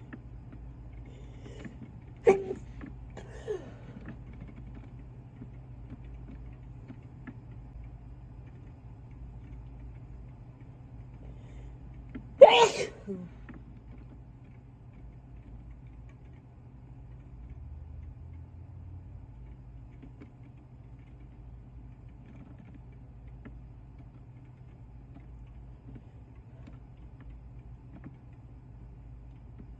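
A person sneezing, brought on by an induced tickle: one sharp sneeze about two seconds in with a smaller sound a second after it, then a louder, longer sneeze about ten seconds later.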